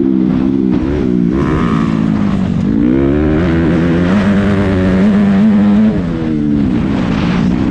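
Motocross bike engine under hard racing throttle, its pitch rising and falling as the rider works the throttle and shifts. It dips briefly about a second and a half in and again near six seconds in, then climbs again.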